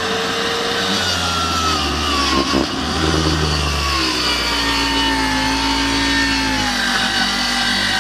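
Zoodos 1200 W plunge (track) saw running, its motor whine sliding steadily lower in pitch, as a saw does when the blade is loaded in a cut.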